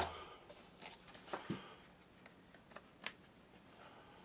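Vibrating suction cup's motor cutting off at the very start, then a few faint, light clicks and taps as the tool is handled with its white plastic anti-friction plate held on by suction.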